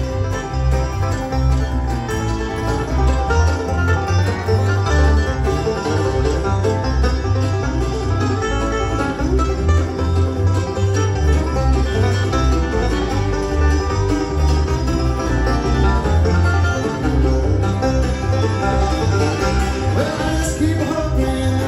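Bluegrass band playing live, with banjo, acoustic guitar and upright bass, over a steady pulsing bass line.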